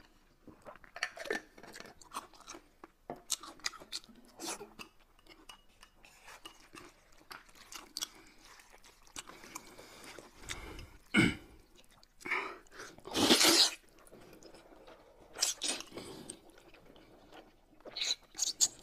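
Close-miked eating sounds: chewing and slurping of wide mianpi noodles in sesame sauce, with small clicks of chopsticks and a spoon. A few louder slurps come in the second half.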